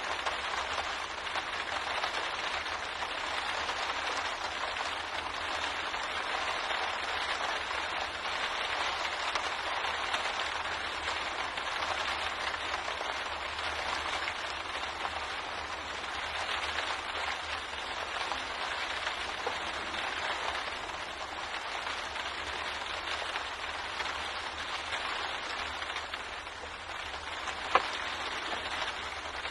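Steady rain pattering against a window pane, a dense even hiss of drops with a single louder drop striking near the end.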